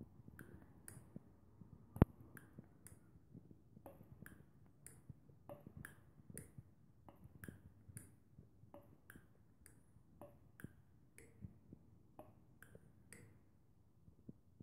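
Mityvac hand pump being worked to pressurise a two-stroke engine cylinder for a pressure leak test: a short click at each stroke, about two a second, stopping shortly before the end. One sharp, louder knock about two seconds in.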